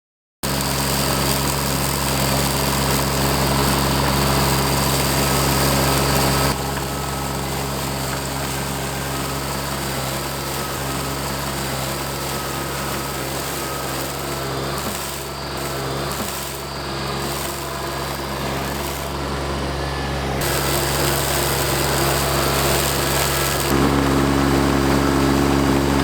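Baumalight mini skid steer running with an FMM148 flail mower attachment: a steady engine drone mixed with the spinning mower. It starts suddenly and changes abruptly in level and tone a few times, about six seconds in, around twenty seconds, and near the end.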